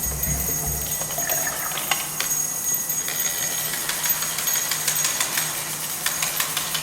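Scattered small percussion: many light clicks and rattles over a soft hiss, with low drum-like beats that stop about a second in.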